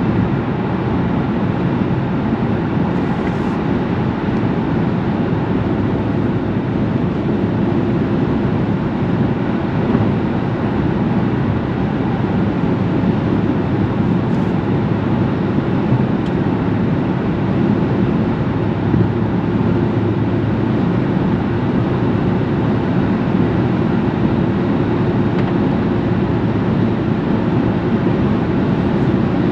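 Steady vehicle rumble, holding an even level throughout without rising or falling.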